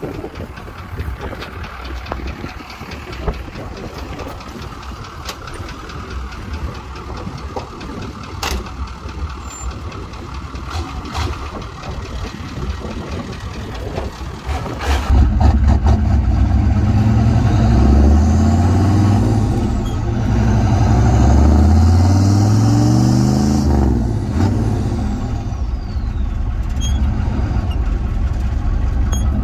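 GM 6.2-litre turbo diesel V8 in a Chevrolet K20 pickup running as the truck drives off, quieter at first. About halfway through it becomes much louder and fuller, the engine note rising in pitch about three times with breaks for gear shifts of the NV4500 manual transmission as it accelerates, then holding steady at cruise.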